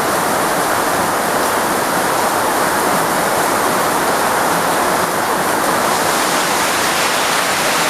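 Heavy monsoon rain falling steadily: a dense, even hiss of water with no single drops or strokes standing out.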